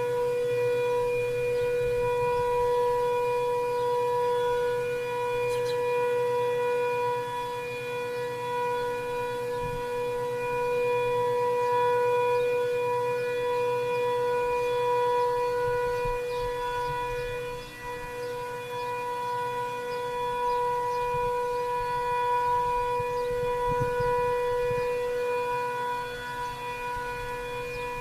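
Sentry 7V8-B outdoor warning siren sounding its steady alert signal for a tornado siren test: one held pitch that doesn't rise or fall, swelling and easing slightly in loudness, heard from a quarter to half a mile away.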